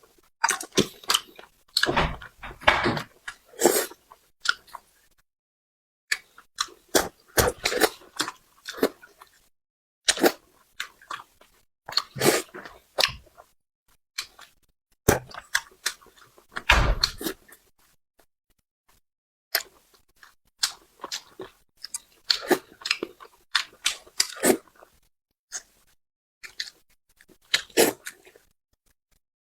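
Close-miked chewing and biting of spicy braised carp, in irregular bursts of wet, clicky mouth sounds with short silent pauses between them.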